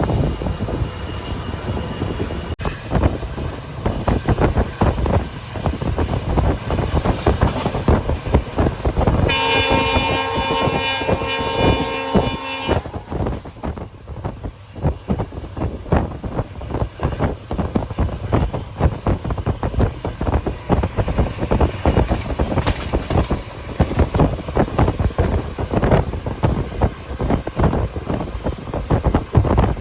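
A passenger train running, its wheels clattering and rumbling over the rails. About nine seconds in, the hauling EMD WDP4 diesel locomotive's multi-tone horn sounds once for about three seconds.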